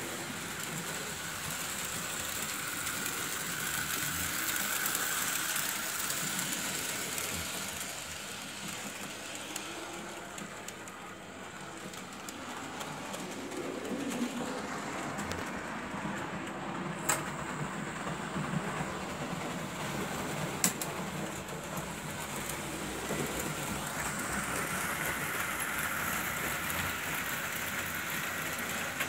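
Märklin H0 model SBB Crocodile electric locomotive running on the layout's track: a steady motor whine with wheels rattling over the rails. It grows louder as the train passes close, fades somewhat in the middle, and there are two sharp clicks in the second half.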